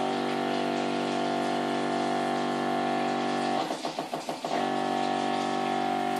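Electric injection pump running with a steady buzzing hum as it pumps water into raw broiler chickens to add weight. The hum breaks off briefly about four seconds in, with a rattle, then starts again.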